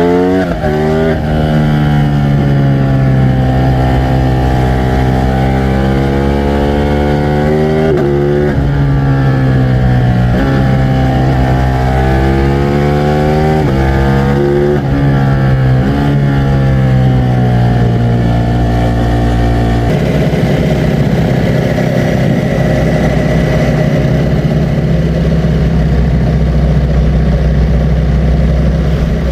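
Ducati Streetfighter V4 S's 1103 cc V4 engine running, its pitch rising and falling with the throttle and jumping sharply several times. About two-thirds of the way through it settles into a steady low, lumpy running like an idle.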